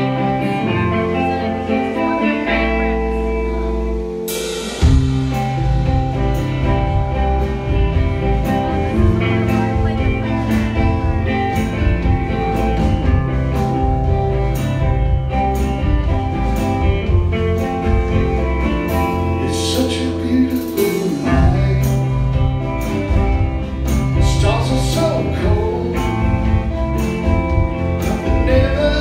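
Rock band playing live: electric guitar and bass guitar alone at first, then the drum kit comes in with a crash about five seconds in and keeps a steady beat. A man's singing voice joins near the end.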